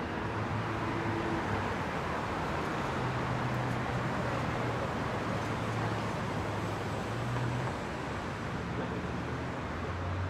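Steady rushing noise from riding a bicycle: wind over the microphone and tyres rolling on pavement, with a low steady hum underneath.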